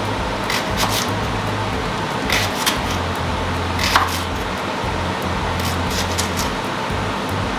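Kitchen knife slicing through a leek onto a wooden chopping board: a handful of irregular crisp chops, the loudest about two and four seconds in, over a steady hiss.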